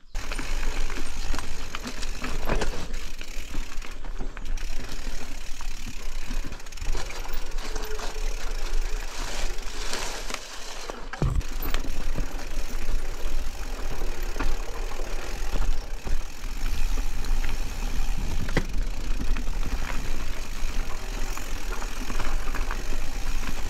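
Specialized Status 140 mountain bike ridden along a dirt singletrack trail: continuous tyre noise with frequent rattles and clicks from the chain and frame, over a steady rumble of wind on the microphone.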